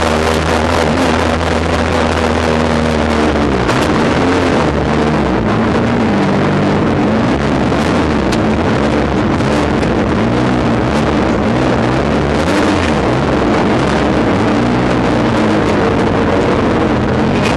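Race car engine heard from inside its cockpit, with loud cabin and wind noise. The engine note holds steady for about the first three seconds, then rises and falls several times as the throttle is worked.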